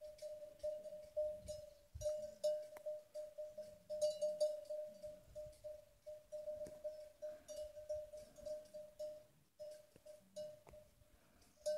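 Cowbell on a grazing cow clanking over and over, about three strikes a second in an uneven rhythm, with a short pause near the end.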